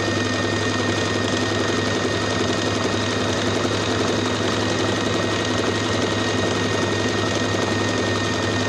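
Domestic electric sewing machine stitching a seam, running steadily at an even speed without pause.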